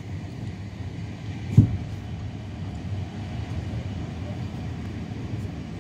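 Steady low rumble of a moving train, with one loud low thump about a second and a half in.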